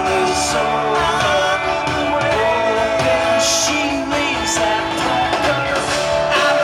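Live rock band playing a song: a sung lead vocal over guitars and drums, with several cymbal crashes.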